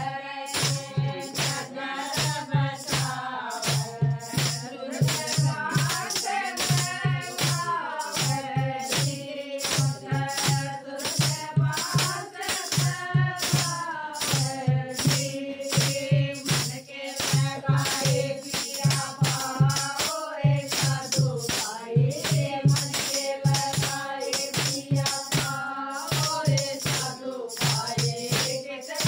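A group of women singing an old devotional folk song (shabad) in unison, with a dholak drum keeping a steady beat and plastic hand clappers rattling on each beat.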